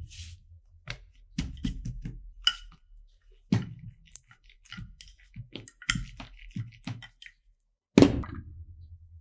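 Kitchen utensils and dishes knocking, tapping and clicking irregularly during food preparation, with a heavier thump about eight seconds in.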